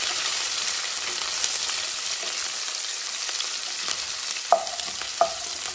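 Sliced onions sizzling in hot oil and ghee in a stainless-steel pressure cooker, stirred with a wooden spatula. Near the end come two sharp clacks with a short ring, the spatula knocking against the steel pot.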